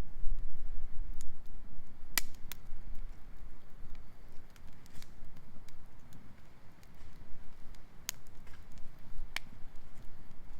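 Wood campfire crackling, with a few sharp pops scattered through a low rumble.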